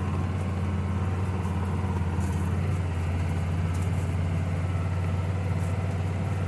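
A vehicle engine running steadily at low speed with an even low hum.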